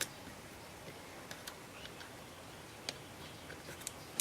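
A handful of light, sharp clicks and taps, irregularly spaced, from small parts and tools being handled while the charger's wiring is put back together.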